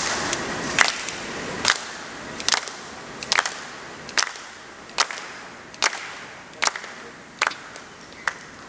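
Badminton rackets striking the shuttlecock back and forth in a rally: about ten sharp smacks, evenly spaced a little under a second apart, over low crowd noise that fades in the first couple of seconds.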